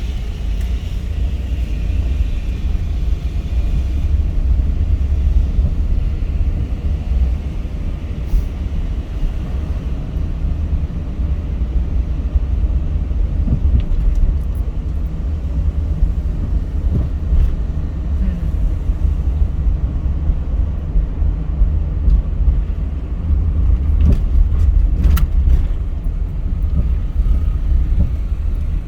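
A car being driven, with a steady low rumble of engine and road noise and a few faint clicks and knocks.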